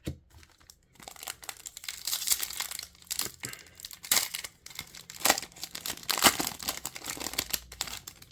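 A trading card pack wrapper being torn open and crinkled by hand, an irregular crackle with sharp louder rips, about seven seconds long.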